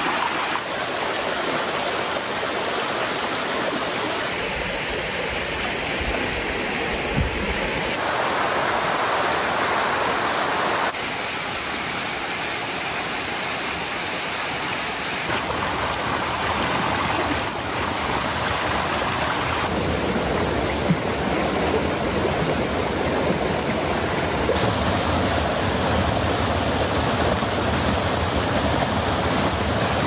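Hot-spring waterfall and stream rushing over rocks, a steady loud rush whose level and tone change abruptly every few seconds.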